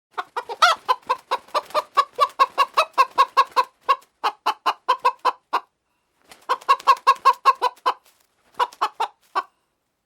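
Hen clucking: rapid runs of short clucks, about five a second, broken by a few brief pauses.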